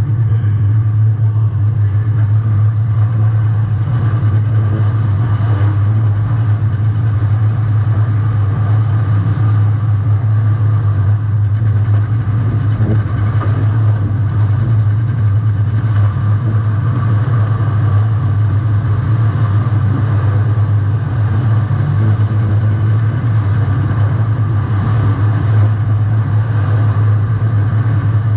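Demolition derby compact car's engine running steadily, a loud low drone close to the mic.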